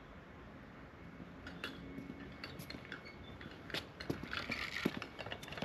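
Scattered light clicks and clinks of hand tools being handled while timber wall plates are marked out, becoming busier over the last couple of seconds.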